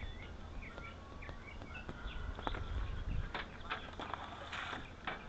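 Birds chirping in the background, then a few sharp clicks and rustles of handling a little over halfway through, over a steady low hum.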